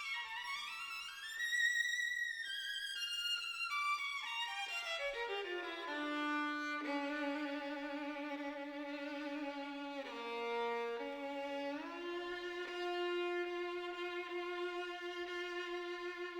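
Classical background music led by a violin: quick rising and falling runs, then long held notes.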